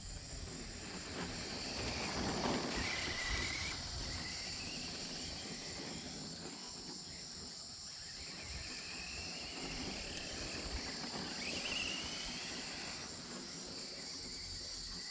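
An Arrma Senton 3S RC truck's electric motor whining in a few rising sweeps as it accelerates across grass, over a steady high insect buzz and a low rumble.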